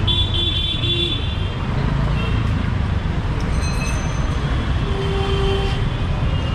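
Busy street traffic: a steady rumble of vehicles with horns honking, short high horn notes in the first second and again near the end, and a lower horn tone about five seconds in.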